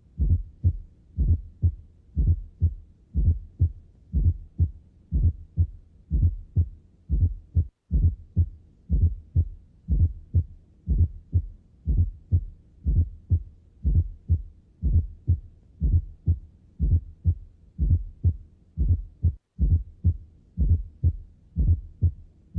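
Recorded human heart sounds: low, dull beats in a steady, even rhythm, each heartbeat a small cluster of thuds. Two brief silent breaks interrupt the rhythm.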